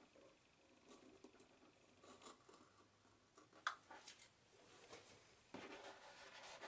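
Faint rustling and rubbing of a sheet of thermal wall liner being handled and pressed by hand into the corner against a window sill, with a light tick a little past halfway and denser rubbing near the end.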